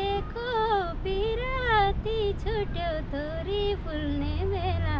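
A high voice singing a slow melody with long, gliding held notes, over a low steady rumble.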